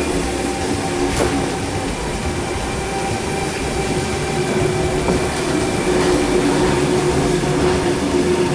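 Sydney Tangara four-car electric train at the station, its running noise a steady hum with a steady whine held on top. A single sharp click about a second in.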